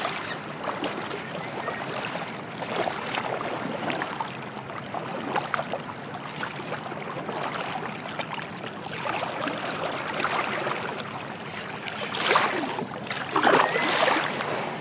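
Small waves lapping at a sandy shore with water splashing, getting louder and busier near the end as a plastic sit-on-top kayak is paddled in and its hull runs up onto the sand.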